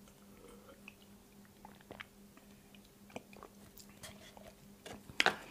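Faint mouth sounds of a man drinking a milk protein shake from a plastic shaker bottle: sips and swallows, then small smacks as he tastes it, with a sharper click near the end. A faint steady hum lies underneath.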